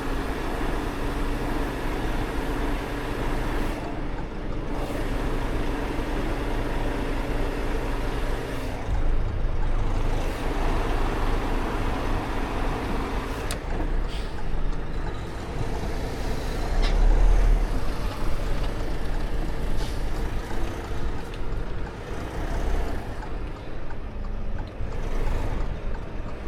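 Volvo VNL 860 semi truck's diesel engine running steadily, with a few light clicks and a brief low thump about two-thirds of the way through.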